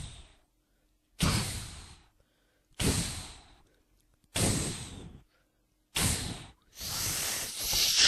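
A series of whooshing noise hits, each starting sharply and fading over about a second: four short ones about a second and a half apart, then a longer, steadier one lasting about two seconds near the end.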